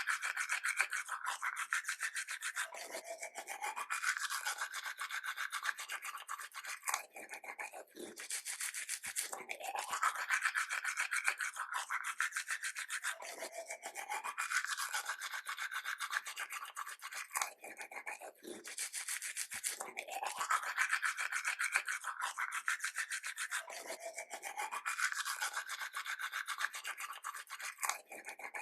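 Toothbrush scrubbing teeth in a rapid, continuous back-and-forth rasp, its tone shifting up and down as the brush moves around the mouth. There are brief breaks about every ten seconds.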